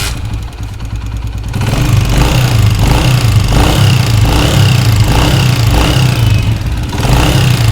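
Honda CG 125 motorcycle engine running, getting louder about a second and a half in, with a repeating noise in its sound. It is the unwanted engine noise that a mechanic put down to the cam gear.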